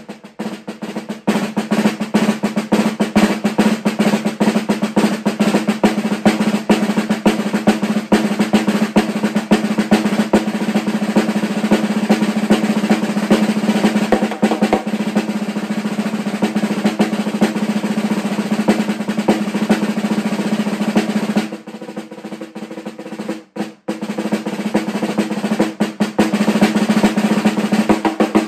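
Marching snare drum played with sticks in a fast, dense rudimental solo, strokes packed closely over the ringing drum. About 21 seconds in the playing drops to a soft passage and stops briefly, then comes back loud.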